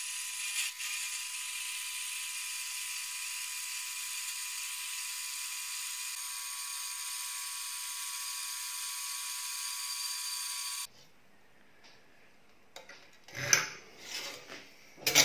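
Metal-cutting bandsaw running steadily through solid steel plate under flowing coolant, stopping suddenly about eleven seconds in. Near the end come two sharp knocks of a steel rule laid on the steel plate.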